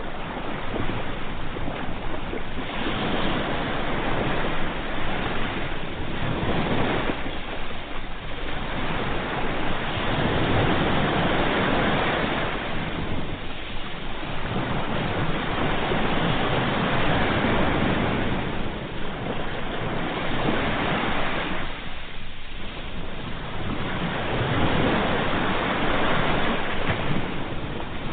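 Sea waves breaking, a continuous wash of surf that swells and eases every few seconds.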